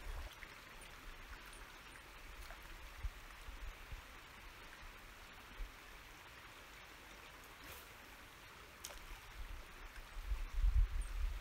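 A river flowing steadily, a soft even rush of moving water. Low rumbling comes in near the end.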